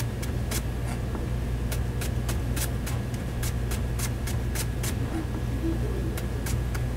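A chef's knife slicing a green onion stalk on a plastic cutting board: quick, even knife strikes against the board, about three a second, over a steady low hum.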